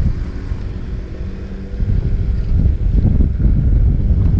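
Wind rumbling on the microphone, with the faint steady hum of a boat engine that fades about halfway through.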